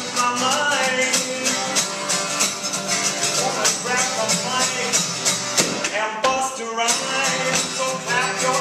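Steel-string acoustic guitar strummed fast and percussively in a live performance.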